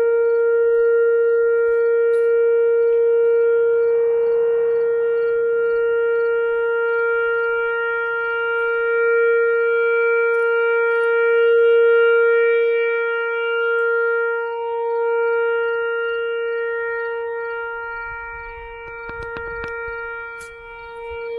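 A town's 6 o'clock whistle: a loud siren holding one steady pitch, swelling and fading slowly, dropping away near the end and then swelling again.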